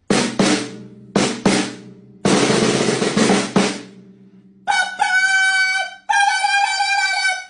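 Drum sound effect: two pairs of quick drum hits, then a drum roll of about a second and a half, followed by two long held notes from a pitched instrument.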